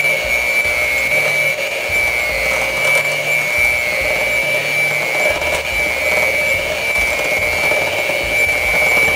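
Handheld electric mixer running steadily with a high whine, its beaters working through pancake batter.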